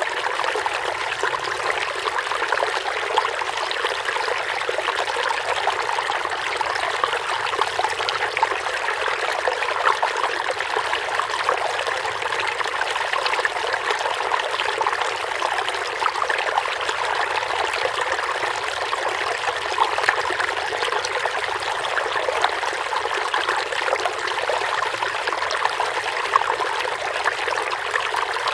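Water of a rocky stream flowing steadily over stones, an even running sound dotted with small splashes and trickles.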